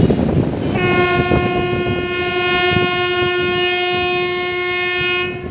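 Train horn sounding one long, steady blast of about four and a half seconds, starting under a second in and cutting off near the end, over the rumble and clatter of the moving train.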